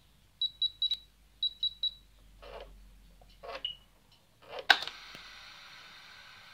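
Two quick sets of three short, high electronic beeps from the radio-control start-up electronics of a GTM100 micro jet engine, then a few soft clicks. A sharp, loud click about three quarters of the way in is followed by a faint steady hiss.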